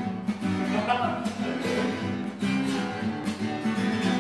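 Steel-string acoustic guitar strummed in a steady rhythm, chords ringing, as an instrumental stretch between sung lines.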